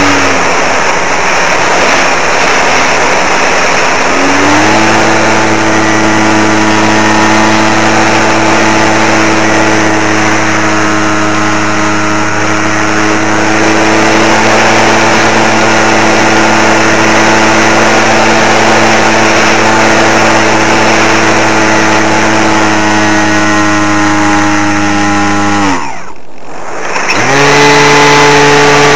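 Electric RC model plane's motor and propeller running at a steady drone, with wind rushing over the microphone. The tone fades and comes back a few seconds in. Near the end the motor is throttled off, its pitch sliding down to near quiet, then spun up again about a second later.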